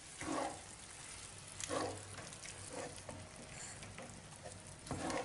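Rigatoni and guanciale sizzling quietly in a frying pan as grated pecorino is stirred in, with a few short scrapes and stirs of a wooden spoon.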